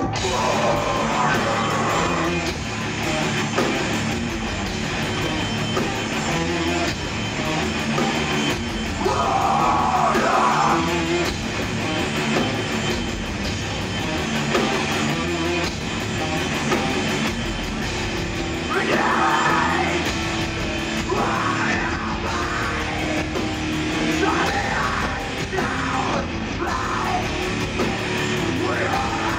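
Hardcore band playing live, heard from the crowd: distorted electric guitars, bass and a drum kit, with shouted vocals coming in over the music in several stretches.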